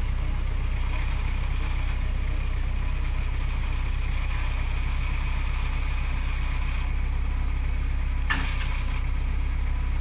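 Diesel engine idling steadily, with one short knock about eight seconds in.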